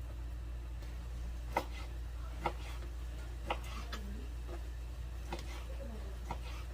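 About six light clicks and knocks at irregular intervals from kitchen items being handled, over a steady low hum.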